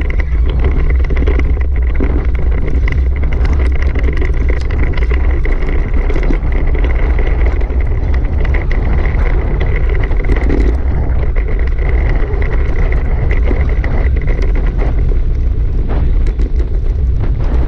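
Dog scooter rolling fast over a dirt track, a loud steady rumble of wind on the action camera's microphone and tyres on the ground, with small rattles over bumps and a thin steady whine.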